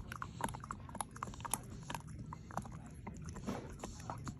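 A dog chewing on a toy: irregular clicks and crunches of teeth on the toy.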